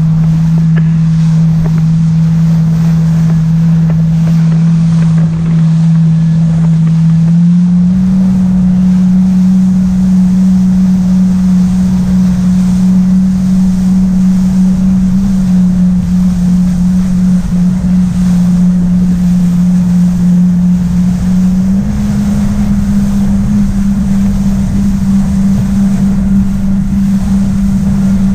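Yamaha jet ski engine running at speed, a steady drone that steps up in pitch twice, about eight seconds in and again about twenty-two seconds in, as the throttle is opened further.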